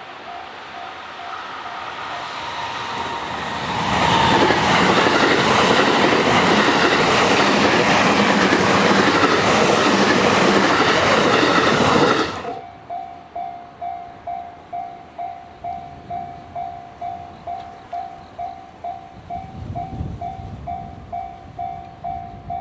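Electric commuter train passing a level crossing: its rumble and wheel noise build up and stay loud for about eight seconds, then cut off suddenly. The crossing's warning bell rings at about two strokes a second, faint under the approach and clear after the train noise stops, with a low rumble swelling near the end.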